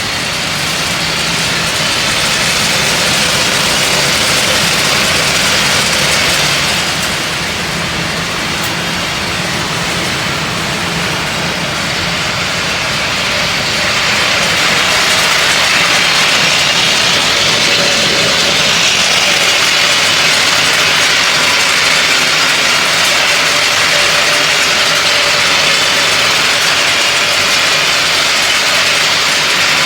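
Industrial almond roasting line running: steady, loud machinery noise with a strong hiss across the high pitches. It eases slightly about seven seconds in and grows louder from about fourteen seconds in.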